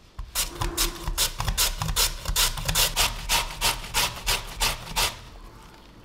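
Raw potato shredded by hand on a plastic julienne grater with metal blades: about three even back-and-forth strokes a second, stopping about five seconds in.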